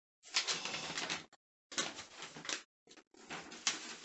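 A paper instruction leaflet being folded up by hand, rustling and crinkling in several uneven bursts with short pauses between them.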